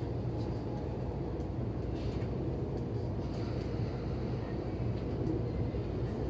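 Running noise heard inside a JR East E231-series electric train car: a steady, even rumble of wheels and running gear.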